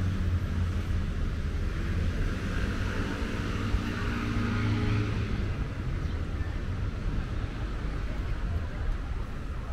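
Steady low rumble of distant traffic. An engine passes, its sound swelling and fading away between about two and six seconds in.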